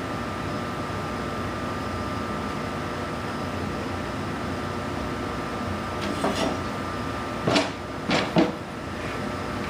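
A white screw-on paint mask being worked off an aircraft wheel half and handled: a faint rub, then three short scrapes near the end, over a steady background hum.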